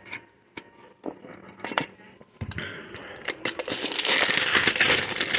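Plastic wrapping on a trading card tin being cut with a knife and torn off. A few light clicks and taps come first, then about halfway in a loud, continuous crinkling and tearing of plastic.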